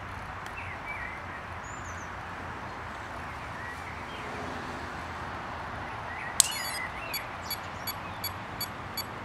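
Birds chirping over a steady outdoor background; about six seconds in, a sharp snap as the 12-cell flight battery is plugged into the T-Rex 600 electric helicopter. It is followed by short high electronic beeps, about three a second, from the helicopter's speed controller arming.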